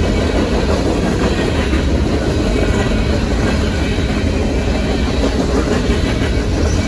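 Empty freight cars of a Union Pacific train rolling past at a grade crossing: a steady rumble with wheels clattering over the rail joints.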